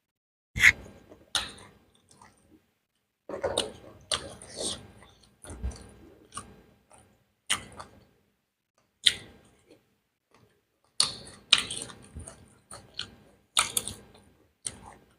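Close-miked chewing and mouth sounds of a person eating beef biryani, in short separate bursts with sharp clicks every second or two and silent gaps between.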